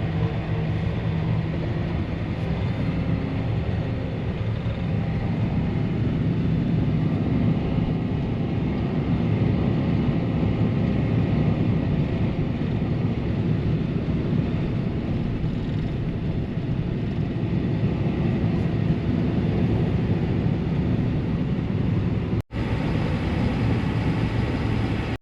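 Heavy harvest machinery running steadily under load: the engines and grain-handling drive of the tractor, grain cart and combine during an on-the-go unload, a dense low drone with no let-up apart from a momentary break about three seconds before the end.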